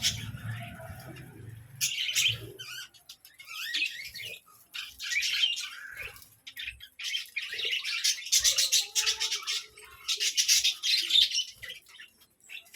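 Budgerigars chattering and squawking in repeated bouts of a second or two, with short pauses between them.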